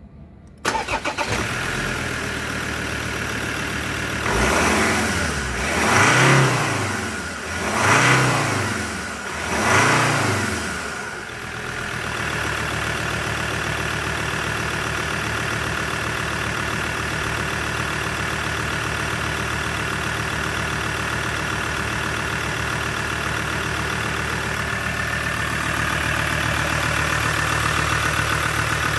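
Ford Ranger's Duratorq TDCi turbo-diesel engine starting less than a second in and settling into an idle. It is revved three times in a row, each rev rising and falling over about two seconds, then idles steadily.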